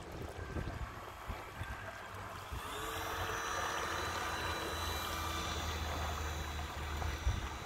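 Radio-controlled model tugboat running on the water: the steady whine of its motor and the churning of its propeller wash, growing louder from about two and a half seconds in as the boat comes close.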